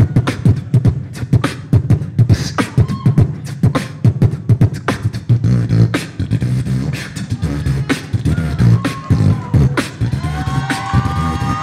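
Live solo beatboxing into a handheld microphone through a PA: a fast run of vocal kick, snare and click sounds over a steady low vocal bass. Near the end, held vocal notes sound over the beat.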